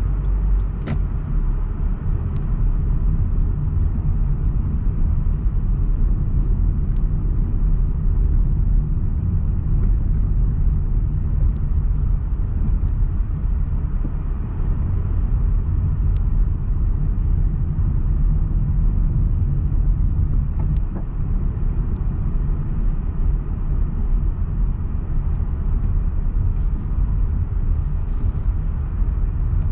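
Steady low rumble of a car driving at low speed, engine and tyres on the road, heard from inside the cabin.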